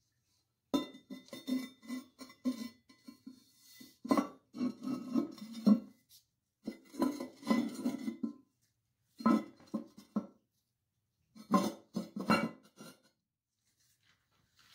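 Clinking and knocking of hard objects on a porcelain toilet, in five bursts of rapid clattering with short gaps between them.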